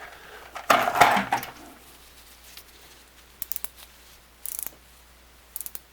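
A small hand tool and metal parts being handled: a loud clatter about a second in, then a few faint small clicks and a brief high hiss.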